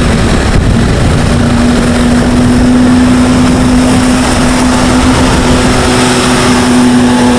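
Large bus engine running close by: a loud, steady rumble, with a steady hum coming in about a second in.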